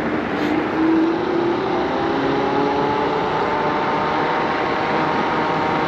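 Mukuta 9 Plus electric scooter accelerating in sport mode: a faint motor whine rising slowly in pitch over a steady rush of wind and road noise.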